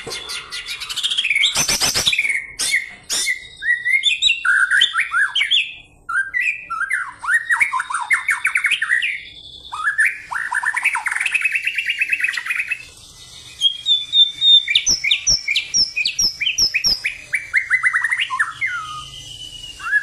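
White-rumped shama singing a fast, varied, energetic fighting-style song of rapid trills and sweeping whistled notes, broken by short pauses between phrases, with a harsh rattle about two seconds in.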